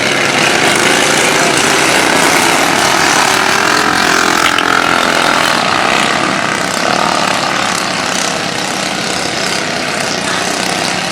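Racing lawnmower engines running hard at high revs, a continuous loud engine noise; one engine note swells and falls away about four to six seconds in, and the overall level eases off slightly near the end.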